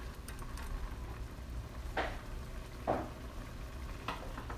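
Prawns in a little spiced water bubbling and sizzling low in an uncovered clay pot as the water boils down, with three brief clicks in the second half.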